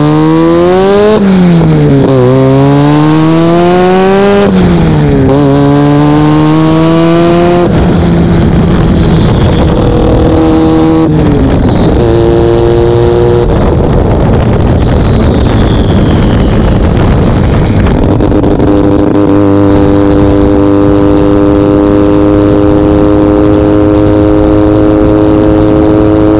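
Turbocharged half-bridgeport 13B rotary engine pulling hard through the gears. It revs up and drops at an upshift about a second in, again around four seconds and near eight seconds, with a high falling whistle after several of the shifts. It then eases off and settles to a steady cruise from about the middle on.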